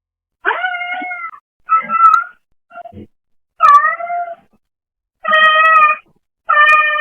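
Brown tabby house cat meowing repeatedly, about six separate meows, one short and faint in the middle, recorded through a pet camera's microphone.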